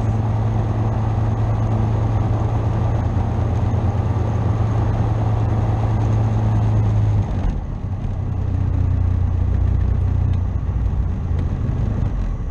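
Tecnam P2002 JF's Rotax 912 four-cylinder engine idling on the ground, propeller turning slowly. About seven seconds in, the engine note drops lower and briefly quieter, then runs on at the lower pitch.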